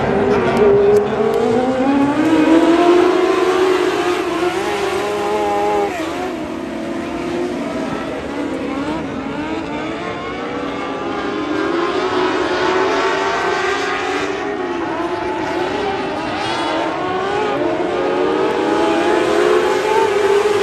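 A field of motorcycle-engined dwarf race cars running laps on a dirt oval, many engines at high revs together, their pitch rising and falling through the turns. The engines are louder about two seconds in and again near the end, as the pack comes round close by.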